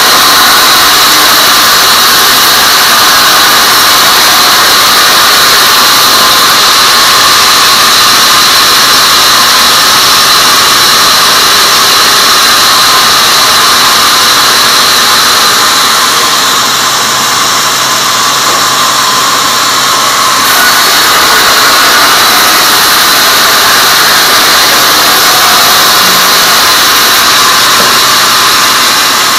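Log band saw mill running and sawing a teak log, a loud steady whine with a low hum underneath.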